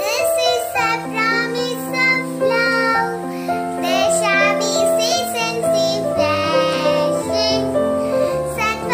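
A young girl singing a prayer song, with steady held low notes under her voice.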